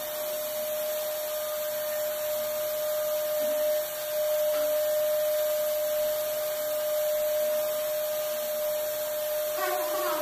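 Stainless-steel wet-and-dry canister vacuum cleaner running steadily, a constant whine over the rush of air, as its wand is worked over a prayer carpet; the level dips briefly about four seconds in.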